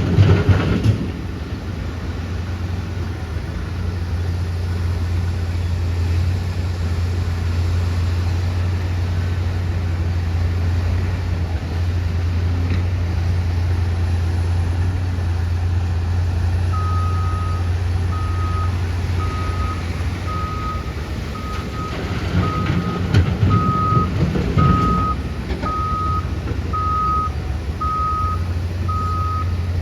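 Heavy diesel engine running steadily at a low pitch. A little past halfway a reversing alarm starts beeping evenly, about one and a half beeps a second. The engine briefly grows louder around three-quarters of the way through.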